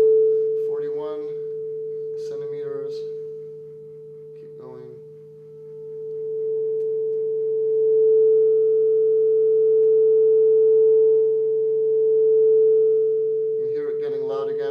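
Steady 440 Hz sine tone from a loudspeaker at one end of an adjustable telescoping resonance tube, swelling and fading as the tube is lengthened. It is quiet about four to five seconds in, then loud from about eight seconds on, where the tube length sets up a standing wave.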